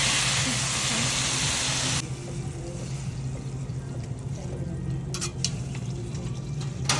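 Food sizzling on a hot hibachi griddle, a loud steady hiss that cuts off abruptly about two seconds in, leaving a steady low hum and a few sharp clinks near the end.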